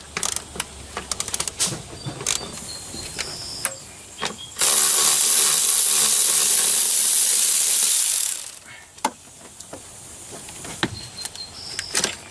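Ratchet wrench clicking and metal tool clicks on engine hardware, then a loud, steady hiss of escaping gas lasting about three and a half seconds before it dies away, with more scattered clicks afterwards.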